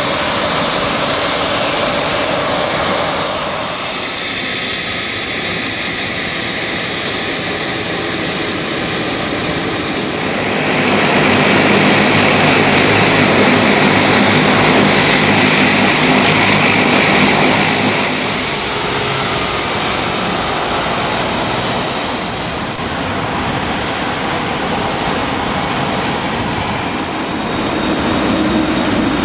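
Airliner engines as one aircraft after another taxis past. First a Douglas DC-8's four jet engines, then a de Havilland Canada Dash 8 turboprop, loudest in the middle, with a steady high whine over a low propeller hum. Near the end comes a Lufthansa Airbus A300 twin-jet.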